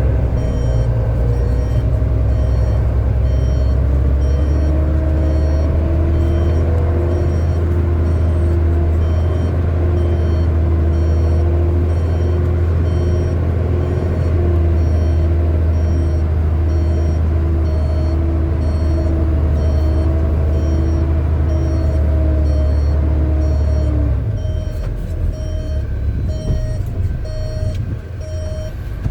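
Heavy diesel earthmoving machinery working under load, its engine drone strong and steady, then easing off about 24 seconds in. Throughout, a reversing alarm beeps at an even pace.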